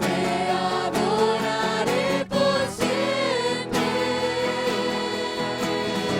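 A group of voices singing a Christian worship song together, the sung notes held and gliding over a steady musical backing.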